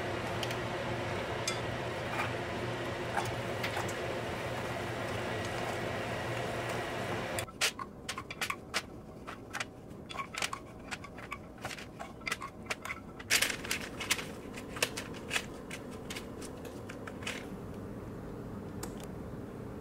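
Walnuts boiling in a pot of water on the stove, a steady hiss and hum. About seven seconds in, this gives way to a long run of light clicks and taps as the walnuts are scraped from the nonstick pot into a bowl with wooden chopsticks and kitchen containers are handled.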